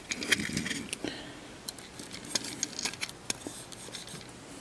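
Handling sounds from a small plastic multitester case while its battery compartment is cleaned out: scattered light clicks and taps, with faint scraping in the first second or so.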